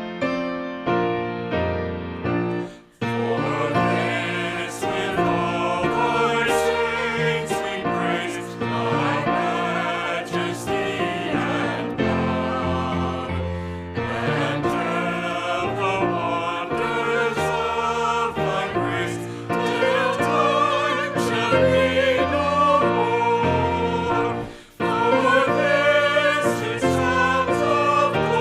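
A hymn sung by a group of voices with keyboard accompaniment, breaking off briefly about three seconds in and again near the end, between phrases.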